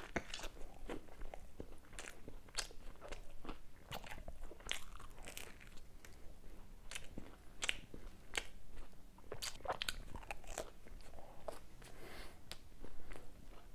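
Close-miked eating: a bite into a Domino's Burger Pizza followed by chewing, heard as soft, irregular crunches and wet mouth clicks.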